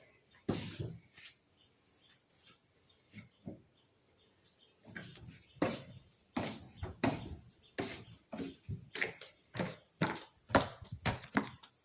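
Irregular sharp clicks and knocks, sparse at first and then coming faster and louder from about halfway through, over a steady high-pitched whine like an insect's.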